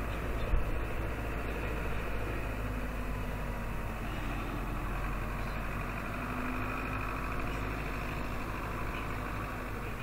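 Diesel engine of an older backhoe running steadily while it clears snow, a continuous low rumble without clear changes in pitch.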